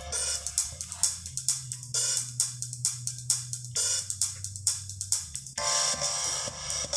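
An MP3 song with drums and cymbals playing from a USB pen drive through an H-Buster HBD-7200MP car stereo head unit, with a steady beat. The arrangement gets fuller about five and a half seconds in.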